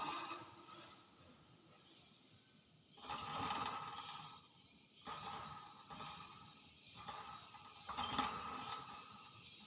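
Pet hill myna making four short noisy sounds a second or two apart, each starting sharply and fading away.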